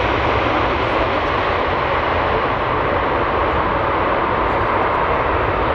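Boeing 777-300 jet airliner rolling out on the runway just after touchdown: a steady, loud jet roar that holds even throughout.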